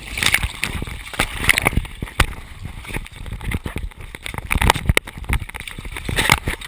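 Seawater sloshing and splashing over a GoPro's waterproof housing held at the surface, with many irregular knocks and bumps against the camera as the swimmer moves in the waves.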